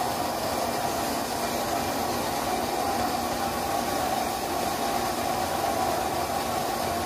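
Milking machine's vacuum system running steadily, a constant mechanical drone with a hiss.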